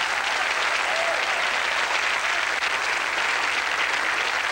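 Audience applauding, steady clapping from a large crowd.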